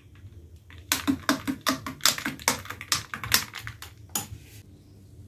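Metal spoon stirring a tall glass of iced drink, clinking rapidly against the glass and ice cubes. The clinking starts about a second in, runs for about two and a half seconds, and ends with one last clink.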